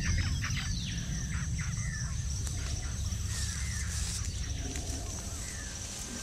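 Woodland ambience: birds calling, with one longer call at the start and short scattered chirps after it, over a low steady rumble.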